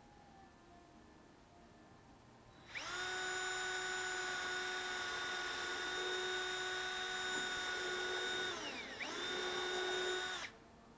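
Cordless drill running into the wooden frame with a steady whine, starting about three seconds in. Near the end its pitch sags briefly and picks back up, then it stops suddenly.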